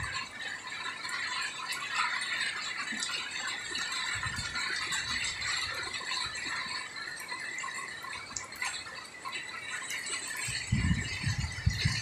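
Heavy squall rain: a steady hiss dotted with many drips and patters. Gusts of wind buffet the microphone about four seconds in and again near the end.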